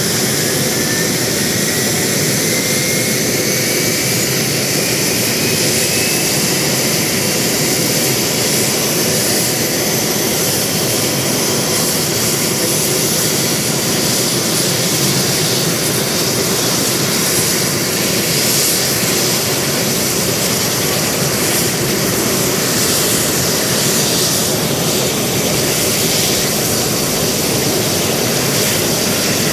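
UH-60J Black Hawk helicopter running on the ground with its rotors turning: steady turbine whine over the rotor noise. A whine climbs in pitch over the first several seconds.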